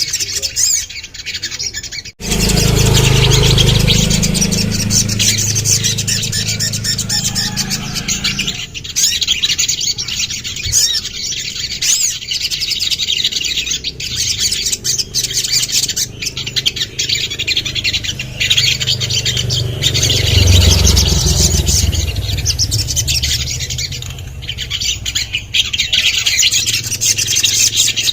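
Sunbird (sogon) singing a dense, rapid run of high chirps and trills, with a low rumble underneath in places.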